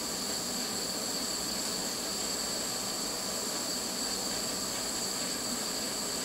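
Handheld gas torch burning with a steady hiss, its flame held on the metal to preheat it for soldering. A thin, steady high whine runs along with it.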